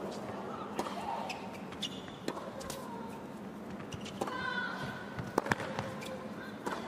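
Tennis rally: a string of sharp ball hits from rackets and bounces on the court, over a low crowd murmur, with a brief voice about four seconds in.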